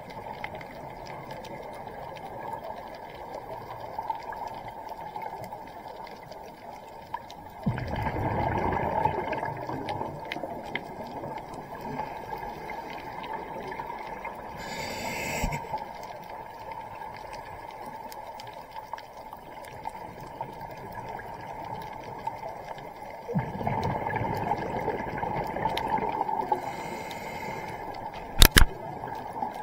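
Scuba diver breathing through a regulator, heard underwater over a steady low rumble. Two long gurgling rushes of exhaled bubbles come about fifteen seconds apart, with a short hiss of inhaling between them, and there is a sharp click near the end.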